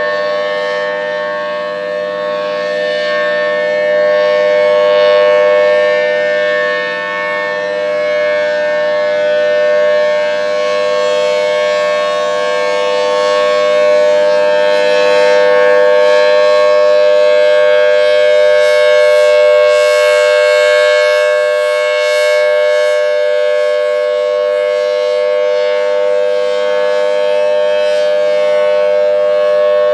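Federal Signal Thunderbolt 1000T tornado siren sounding a steady, loud dual tone with no rise or fall in pitch, its loudness swelling and easing slowly.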